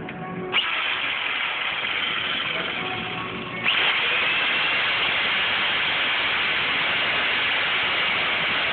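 Handheld corded electric saw starting up about half a second in and running steadily, then getting sharply louder a few seconds in as the blade bites and stays loud; an onlooker calls it grinding rather than cutting.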